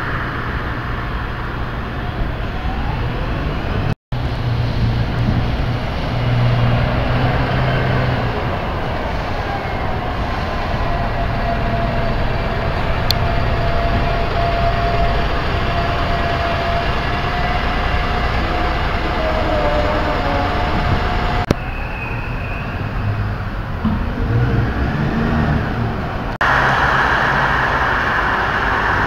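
A city bus running, with a steady drawn-out whine for several seconds in the middle, among road traffic; near the end, cars pass on a street.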